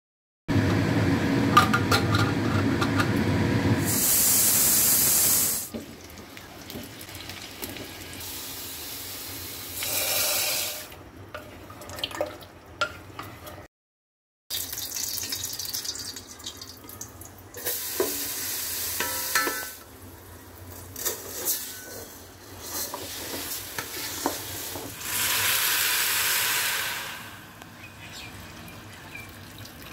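Kitchen cooking sounds in several short cuts: spiced beef bubbling in an aluminium pressure cooker, metal clicks and clanks as the cooker's lid is fitted, and four bursts of hissing and splashing as boiled water is poured over rice.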